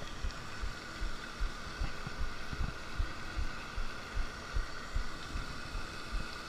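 Spinning reel being cranked to bring in a hooked fish, with irregular low thumps of handling and wind on the microphone a few times a second over a faint steady whir.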